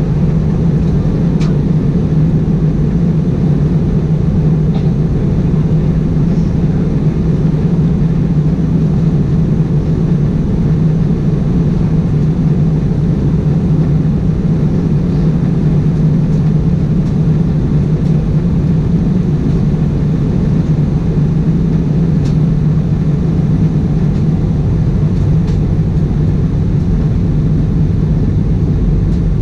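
Cabin noise inside an Airbus A320-211 with CFM56-5A engines in flight during descent: a steady, loud low drone of engine and airflow noise that does not change.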